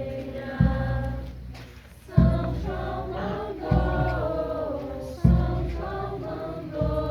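A group of voices singing a song together, with a deep beat struck about every second and a half.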